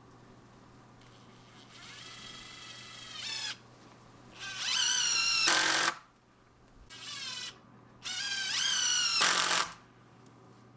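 Power drill running in four bursts, its whine rising in pitch as it speeds up each time, as when driving screws into wood; the two longer bursts are the loudest.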